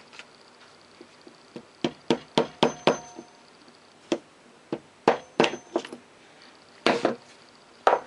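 Light hammer taps on a part of a Lister D engine's governor assembly, tapping it down into place. There are about a dozen sharp metallic knocks: a quick run of five about two seconds in, another run around five seconds, then a couple of single taps. Some taps leave a brief ring.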